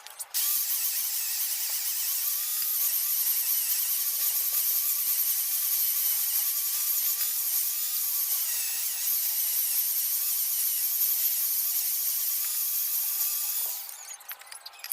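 A small high-speed power tool running steadily with a high whine, its pitch wavering slightly as it works, then stopping shortly before the end.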